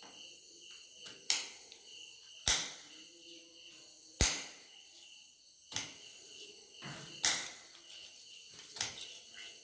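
Kitchen knives chopping through raw potato and striking a hard cutting board: about six sharp single chops at uneven gaps of one to two seconds.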